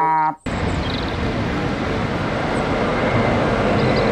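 City street traffic with a red double-decker bus driving past: a steady rumble of engine and road noise, with a few faint high chirps.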